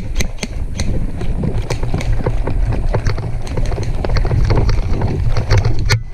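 A player running hard on foot: quick, irregular footfalls and gear clattering, with wind buffeting the head-mounted microphone.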